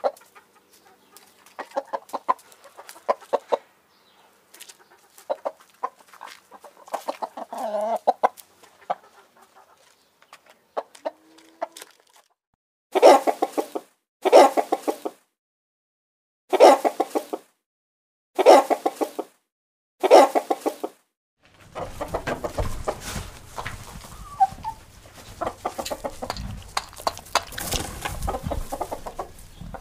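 Chickens clucking in quick, broken runs, then five loud squawking calls about one and a half to two seconds apart. After that comes a busier, noisier stretch of clucking with a low rumble underneath.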